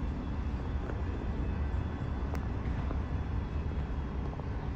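Steady low rumble of a Brightline train's Siemens Charger diesel-electric locomotive as the train rolls slowly into the station, with a single sharp click about two seconds in.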